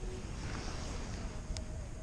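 Wind buffeting the microphone, a steady rumbling noise, with a faint click about one and a half seconds in.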